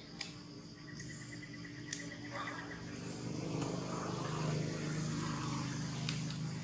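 A steady low engine hum that grows louder over the first few seconds, with two sharp clicks in the first two seconds.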